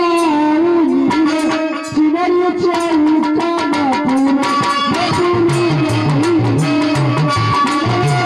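Live Indian stage-band music: a gliding melody line over fast hand-drum strokes, with a lower repeating bass line coming in about five seconds in.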